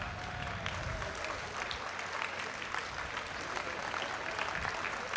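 A large audience applauding, many hands clapping at once.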